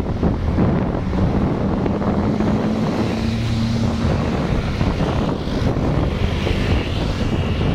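Small motorcycle engine running steadily while riding along a road, with wind rushing over the microphone.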